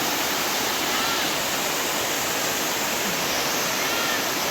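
A waterfall's water pouring and splashing, a steady, unbroken rush.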